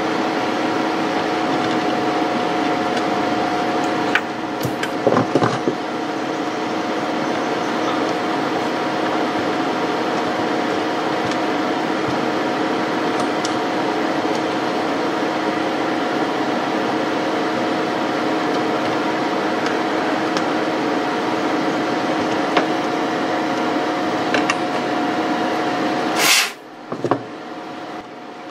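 A steady machine hum with a couple of even tones, which stops abruptly with a sharp click near the end. A few light clicks come about four to five seconds in, as the repaired laptop hinge is worked by hand.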